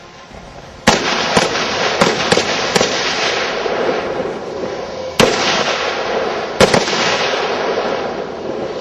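Rifle shots from an AR-15 carbine, about eight in all: a quick string of five in under two seconds starting about a second in, a single shot a little past the middle, then a fast pair, each trailing off into a rolling echo.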